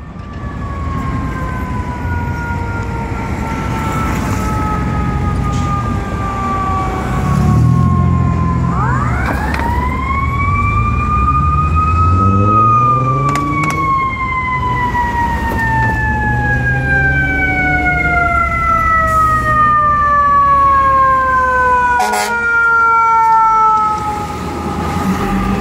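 Fire engine's mechanical siren winding: a long slow fall in pitch, a quick rise back up about nine seconds in, then another long slow fall. Under it the truck's diesel engine runs and revs up as it pulls away.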